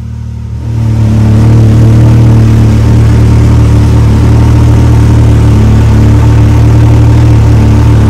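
Can-Am Maverick X3's three-cylinder turbocharged engine running loud and steady, rising sharply from a quieter idle about a second in.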